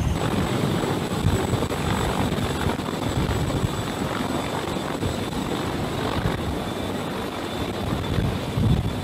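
A CH-53E Super Stallion's three turboshaft engines and rotor in a low hover overhead, holding steady for an external-load hookup. There is a loud, steady rush of rotor downwash with uneven low gusts, and a steady high turbine whine on top.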